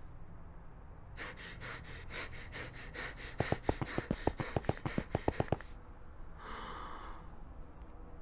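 A cartoon character panting quickly and rhythmically, about five breaths a second, as if running hard. From about three seconds in the breaths turn into short voiced gasps, which stop suddenly about five and a half seconds in. One longer breath follows a second later.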